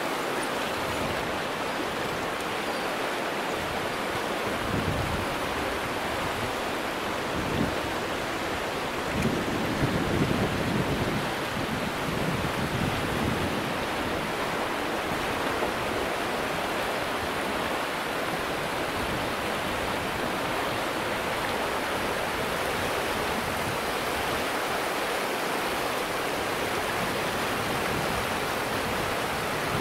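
Steady rush of flowing water, a river or waterfall, as an even hiss with no letup, swelling briefly a few times in the first half.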